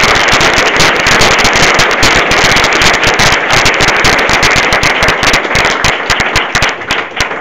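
Audience applauding: dense clapping that thins out toward the end.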